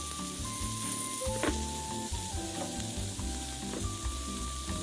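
Marinated chicken sizzling on a smoking grill, under light bossa nova background music. There is one sharp click about one and a half seconds in.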